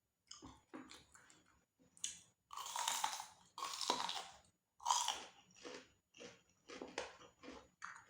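Crunchy food chewed close to the microphone. There are a few loud, dense crunches in the middle, then steadier chewing at about two strokes a second.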